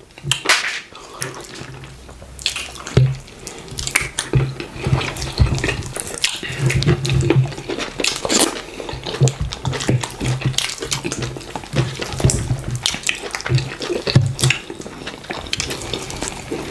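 Close-up eating sounds of fufu and okra soup eaten by hand: wet, sticky squelching of fingers in the slimy soup, with many quick mouth smacks and clicks as big bites are chewed and swallowed.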